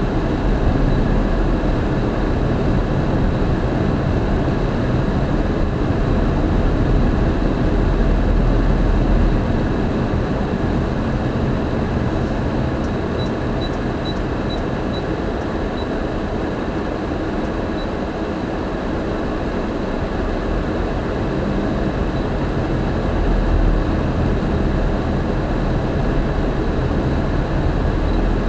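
Steady road and engine noise inside a moving car's cabin: a low rumble with tyre hiss that eases for a few seconds past the middle. A short run of faint ticks comes about halfway through.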